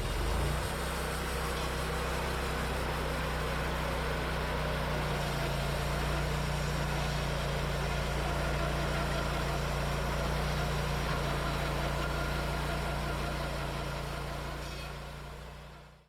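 Wood-Mizer LT40 band sawmill running steadily, its band blade cutting through hickory, which the operator finds is not cutting the way it is supposed to. The sound fades out over the last couple of seconds.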